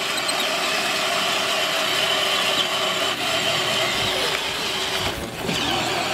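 Electric drive motors and plastic gearbox of a battery-powered ride-on toy Jeep, whining steadily as it drives over grass. The sound dips briefly about five seconds in.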